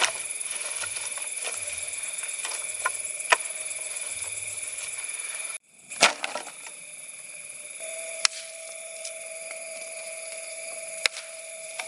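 Night insects, crickets or katydids, shrilling steadily at several high pitches, with scattered sharp clicks and knocks. The sound cuts out briefly about halfway through, and there is a louder knock just after it comes back.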